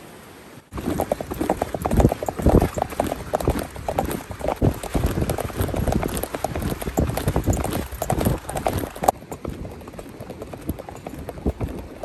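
Hoofbeats of a purebred Arabian horse moving at a quick gait, a fast run of strokes. They start abruptly under a second in and turn fainter about nine seconds in.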